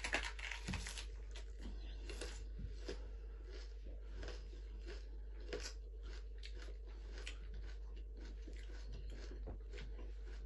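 A raw red onion bitten into and chewed: crisp crunches, a little louder in the first second, then irregular crunching clicks as it is chewed.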